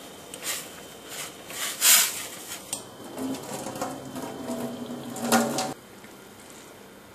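A steel saucepan clatters as it is lifted and handled, with the loudest knock about two seconds in. Then the noodles' cooking water is poured off into a stainless steel sink, splashing for a few seconds and cutting off suddenly shortly before the end.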